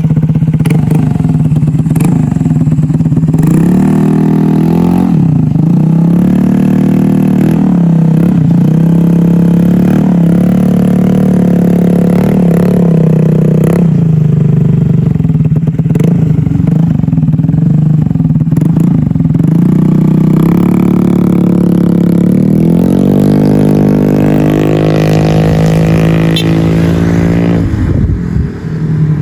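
Motorcycle engine running through an SC Project exhaust with its internal silencer removed, with a loud steady idle broken by repeated throttle blips. Near the end there is a longer rising rev that drops back just before the end.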